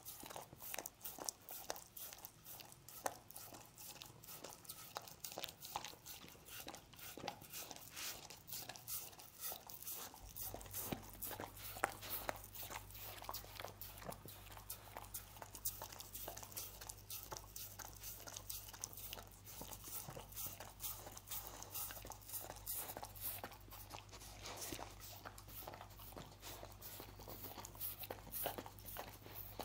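Dog licking honey off a wooden cutting board: an uneven run of licking and smacking clicks, several a second, with no pause.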